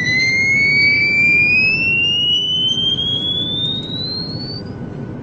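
Cartoon whistle sound effect rising steadily in pitch for about four and a half seconds, then stopping, over a steady low rumble.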